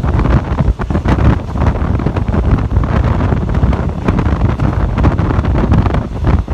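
Wind buffeting the microphone at the open window of a moving train, over the low rumble of the train running along the track.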